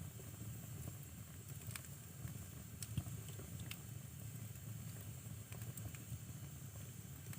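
Wood fire burning in a fireplace: a low steady rumble of the flames with scattered crackles and pops, the sharpest pop about three seconds in.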